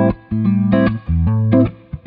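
Electric guitar playing a riff of short chords with brief gaps, run through a Hammond Leslie G rotary-speaker simulator pedal, which gives the notes a fast wobble.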